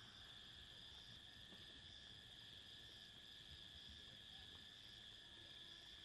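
Faint, steady chirring of night insects, a night-time natural ambience.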